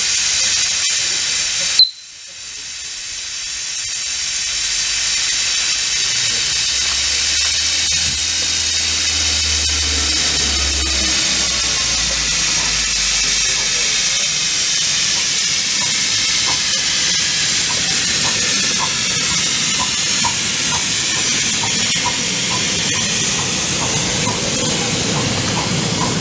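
Steady loud hiss of steam blowing off from a miniature live-steam locomotive. About two seconds in there is a sharp click, after which the hiss drops away and builds back up over a few seconds.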